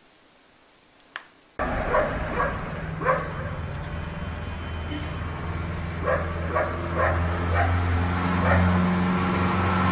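Near silence with a single click, then, after about a second and a half, a dog barking in short, irregular barks over a steady low hum.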